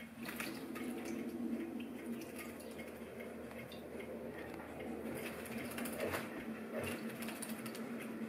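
House sparrow bathing in a shallow bowl of water in a stainless steel sink: irregular small splashes and light ticks of droplets on the metal, busiest about six to seven seconds in, over a steady low hum.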